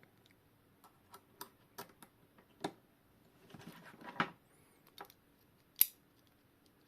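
Scattered light clicks and taps of small metal clock-movement parts and tools being handled during assembly, with a brief rustle a little past halfway and a sharper click near the end.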